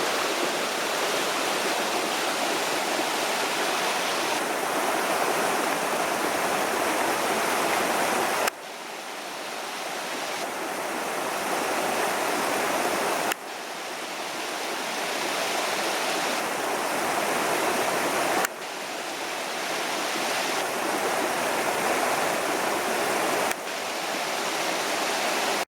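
Rushing water of a jungle stream cascade, a steady loud wash. It shifts abruptly in level and tone four times, about every five seconds, as one stretch of water gives way to another.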